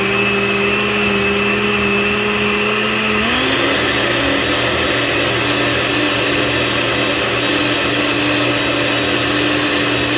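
A countertop blender's motor runs steadily, puréeing a salsa verde of boiled tomatillos, onion, garlic and cilantro. About three seconds in, its pitch steps up and then holds.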